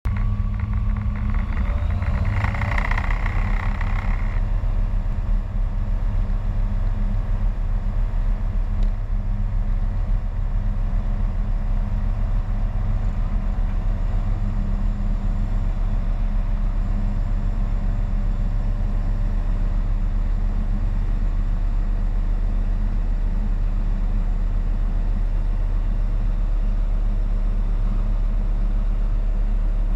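SportCruiser light-sport aircraft's Rotax 912 four-cylinder engine and propeller running at takeoff power, heard inside the cockpit, a steady drone through the takeoff roll and climb-out. A brief higher-pitched sound comes through about two seconds in.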